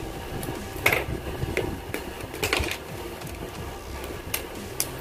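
Plastic model-kit nippers snipping parts off a plastic runner and trimming them: several sharp snips and clicks, the loudest about a second in and midway.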